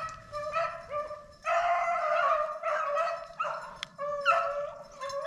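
Pack of rabbit-hunting dogs barking and yipping as they work a rabbit's scent trail: a quick run of short, high calls, about two a second. A puppy is among them, trying to lead the pack.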